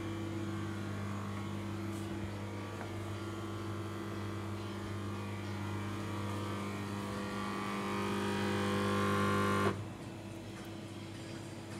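A machine running with a steady buzzing hum that grows louder over its last couple of seconds, then stops abruptly near the end, leaving a fainter hum.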